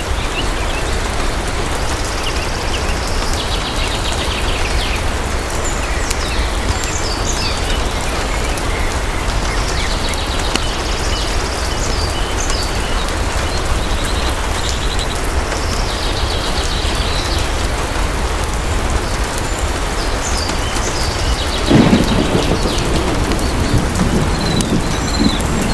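Steady, heavy rain falling in a storm. Near the end a roll of thunder comes in as a low rumble that lasts a few seconds.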